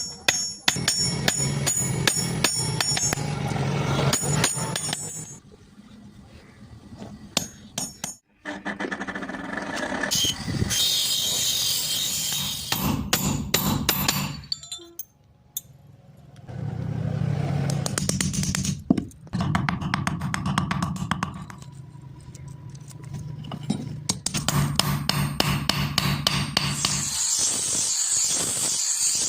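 Background music with many sharp clicks and knocks mixed in, dipping quieter twice.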